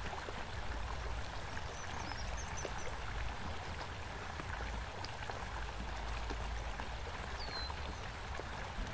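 Water of a small stream flowing steadily: an even, continuous rush, with a faint high ticking about two to three times a second over it.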